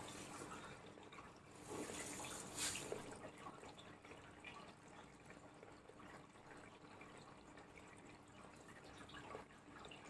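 Faint water running and dripping inside a Manfield MFWD-1410-6S04 washer-dryer during a drain-and-fill test, louder for a second or so about two seconds in.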